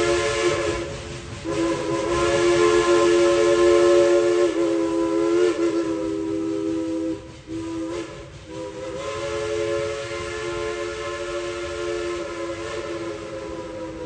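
A steam locomotive's whistle blowing long blasts, sounding several notes at once over a hiss of steam. The blasts are broken by short gaps about a second in and around seven to eight seconds in, and the pitch wavers briefly in the middle blast.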